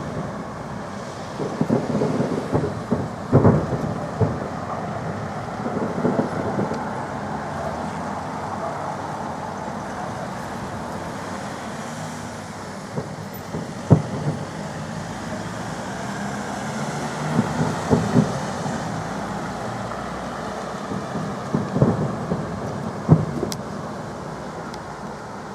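Fireworks salute: shells bursting in booms every few seconds, irregularly spaced, with a rolling rumble between them.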